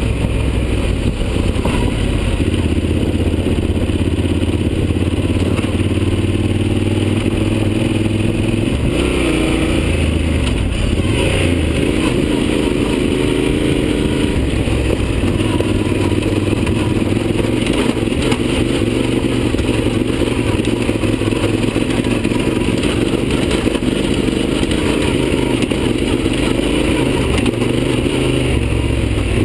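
Yamaha Super Ténéré's parallel-twin engine running steadily at trail speed on a rough dirt track, its note changing about nine seconds in.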